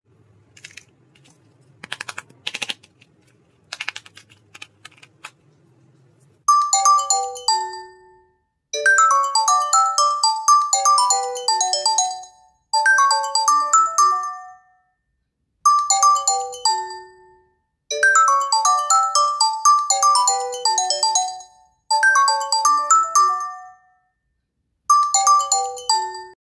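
Samsung Galaxy S24 Ultra ringing for an incoming call: a ringtone melody of short bell-like notes in repeated phrases, each mostly stepping downward, starting about six seconds in. Before it, a few sharp clicks over a faint hum.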